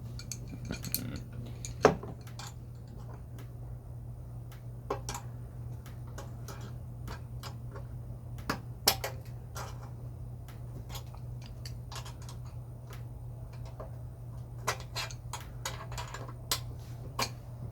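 Scattered metal clicks and clinks of hand tools and loose parts being handled while a generator is taken apart, with two sharper knocks about 2 s and 9 s in. A steady low hum runs underneath.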